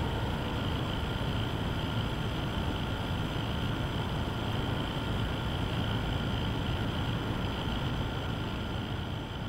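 Steady machine noise of a LEGO model power plant running: an even whir with a low hum underneath, unchanging throughout.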